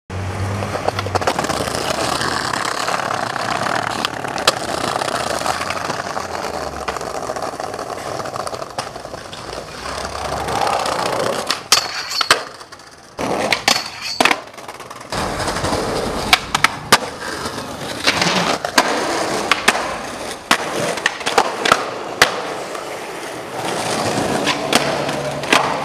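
Skateboard wheels rolling steadily, with sharp clacks of the board being popped and landing scattered throughout, and a quieter stretch about halfway through.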